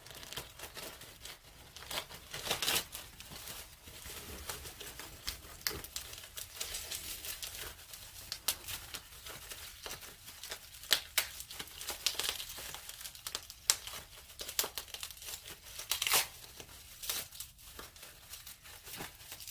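Wrapping being torn open and crinkled by hand, with irregular sharp crackles and snaps throughout.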